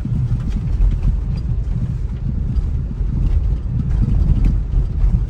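Car driving over a rough, unpaved road, heard from inside the cabin: a steady low rumble of engine and tyres with a few faint knocks.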